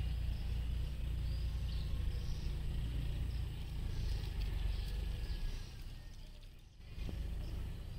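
Rural outdoor ambience: a low rumble with small birds chirping high above it. The rumble drops away briefly near the end.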